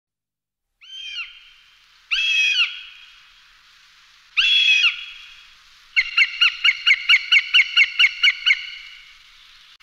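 A bird calling: three separate short calls a second or two apart, then a quick run of about a dozen calls at roughly five a second.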